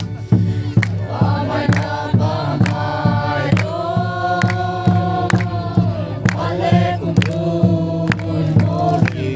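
Group singing over a steady beat that lands about three times a second, with one long held note about the middle.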